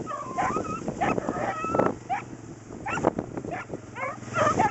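Beagles yipping and barking in quick, repeated short calls, some of them drawn out and bending in pitch.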